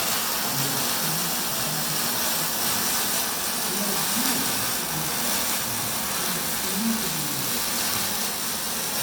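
Electric arc welding on steel box section: a steady crackling hiss from one continuous weld run.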